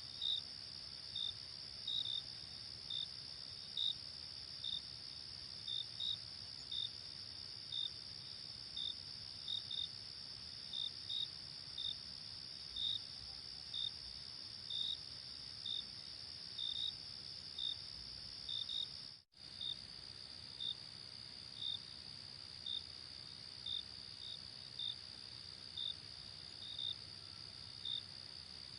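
Crickets chirping at night: a steady high-pitched trill with separate short chirps over it, one or two a second at uneven spacing. The sound cuts out for an instant about two-thirds of the way through.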